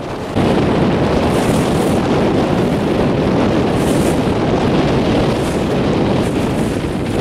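Strong wind buffeting the microphone over the rush of choppy water, getting louder about half a second in.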